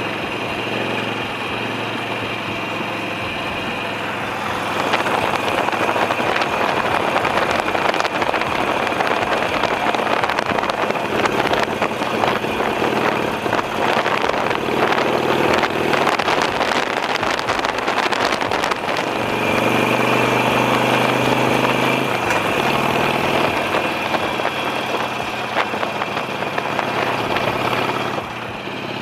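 Motorcycle engine idling, then louder from about five seconds in with a rush of wind noise as the bike rides off; the sound drops back near the end.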